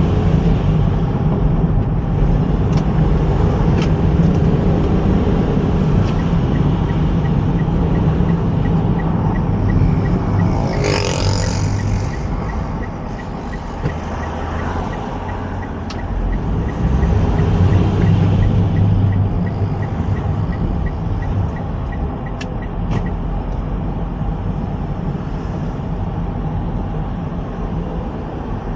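A motor vehicle running steadily, with a short loud hiss about eleven seconds in and a faint even ticking at about two ticks a second through the middle.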